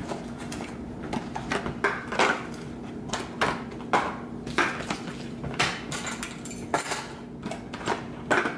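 Empty black plastic meal-prep containers being set down and slid into place on a granite countertop: a string of light, irregular clacks and knocks, about one or two a second, over a steady low hum.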